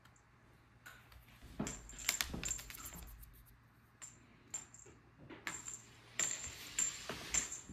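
A small bell on a cat's feather wand toy jingling in irregular bursts as the toy is waved about and batted at, with light knocks mixed in. The jingling starts about a second and a half in and comes again in a busier run near the end.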